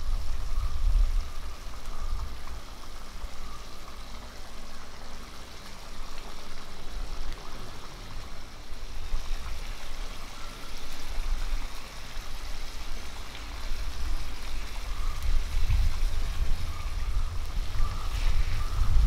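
Thick tomato-onion curry gravy simmering and bubbling in a cast-iron kadai over an open wood fire, under a low rumble that rises and falls.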